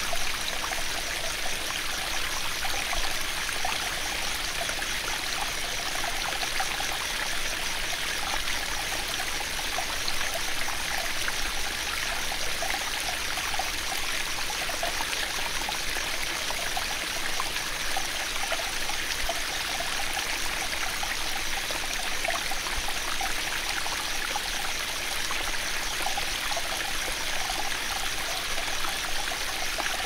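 A small stream running steadily, with insects trilling continuously in a fast, even pulse high above the water sound.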